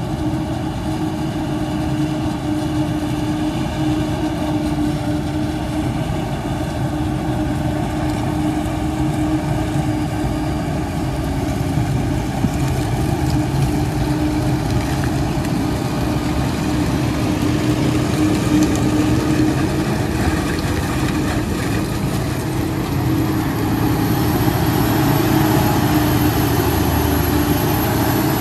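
Fendt 828 Vario tractor's six-cylinder diesel running steadily as it pulls a silage trailer past at close range, with the engine and tyre noise of heavy harvest machinery around it. The sound grows a little louder near the end, and a thin high whine joins in during the last few seconds.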